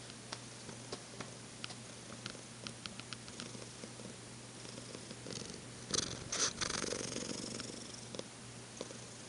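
Domestic cat purring steadily, with scattered small clicks and a louder rush of noise about six seconds in that fades over a couple of seconds.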